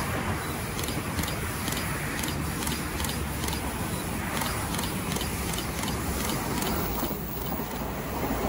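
Steady rumble of road traffic with a Puyuma Express tilting electric train approaching, and a light regular ticking about three times a second. The train grows louder at the very end as it comes past.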